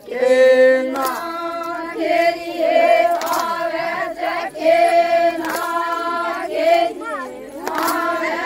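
A group of women singing a folk wedding song together, unaccompanied, in short repeated phrases with held notes. A sharp click sounds now and then between the phrases.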